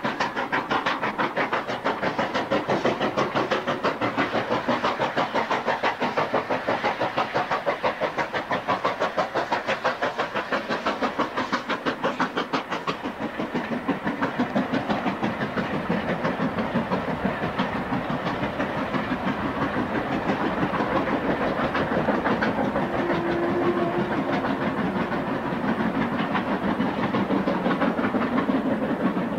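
Two steam locomotives, a War Department 2-10-0 and an LMS Black 5 4-6-0, working hard up a steep 1 in 49 gradient. Their chimney exhausts give a rapid, regular beat.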